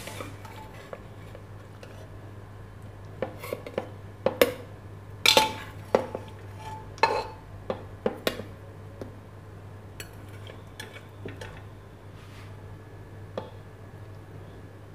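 Metal spoon knocking, clinking and scraping against a metal pressure cooker and a plate as boiled ridge gourd and tomatoes are scooped out: a scattered run of sharp clinks, some ringing briefly, the loudest between about four and eight seconds in.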